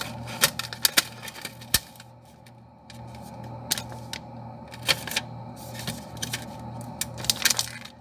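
Plastic snack wrappers crinkling and food packages being handled, giving irregular sharp clicks and crackles over a steady low hum.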